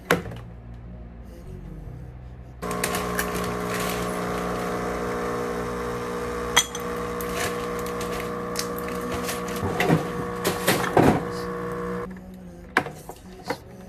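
A steady machine hum starts a couple of seconds in and cuts off abruptly near the end, with clicks and knocks over it, the loudest near the end.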